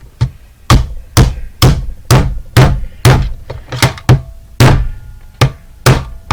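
A hammer striking an alarm clock again and again, about two hard blows a second, each a sharp knock with a short ring, smashing the clock apart.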